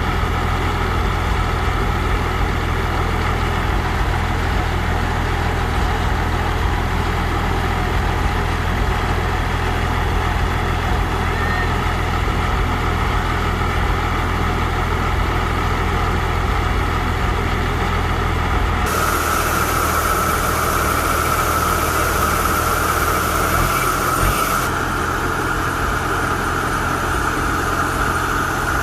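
Diesel engine of a farm machine running steadily. A brighter hiss joins for several seconds about two-thirds of the way through.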